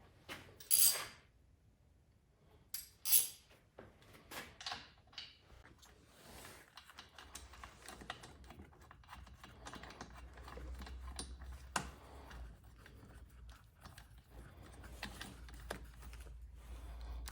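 Small metal tool clicks and clatter on a Stihl MS251C chainsaw as its spark plug is taken out, with two louder clacks about one and three seconds in. A low steady hum comes in about halfway through.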